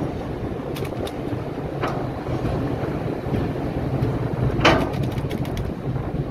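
Steady low drone of ship engines mixed with wind on the microphone. A few short clicks break through, the loudest a little before five seconds in, followed by a quick run of smaller ones.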